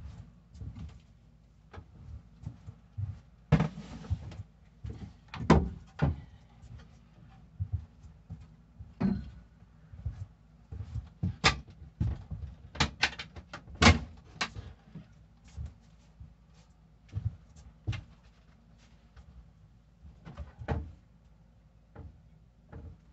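Wooden knocks, thumps and clatter as a boat's companionway steps are lifted out and the engine access panel behind them is taken off. The knocks come in irregular bunches, loudest in the first third and again a little past the middle.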